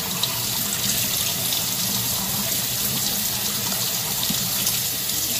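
Kitchen tap running steadily into a sink, the stream splashing over a whole yellow croaker as it is rinsed by hand and its belly cavity washed out.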